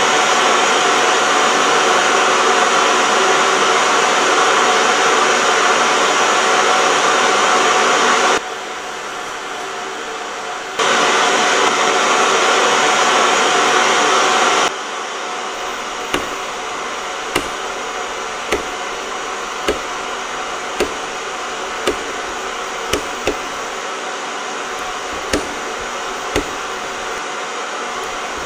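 Vintage television's static hiss, loud and steady, dropping quieter for a couple of seconds about a third of the way in. Around halfway it falls to a quieter hiss, and a series of sharp clicks follows about once a second: the channel selector being turned step by step.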